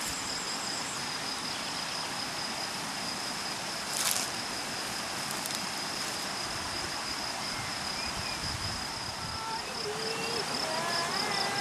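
Cricket trilling in one steady high note over outdoor background hiss, with a brief click about four seconds in. Near the end the trill turns pulsing and a simple tune of short stepping notes begins.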